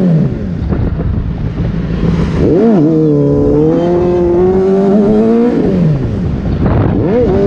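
Sport motorcycle engine running and being revved while riding. The pitch falls away at the start, jumps up and back about two and a half seconds in, holds steady for a few seconds, then drops, and rises sharply again near the end. A heavy wind rumble on the microphone runs underneath.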